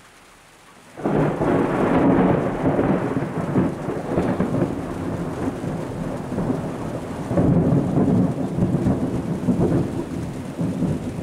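Thunder following a nearby lightning strike: it starts suddenly about a second in, then rumbles on loudly, swelling again about halfway through and fading toward the end.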